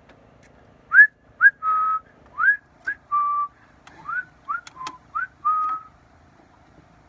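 A person whistling a short tune: quick upward-sliding notes alternating with short held notes. Two sharp clicks come a little under five seconds in.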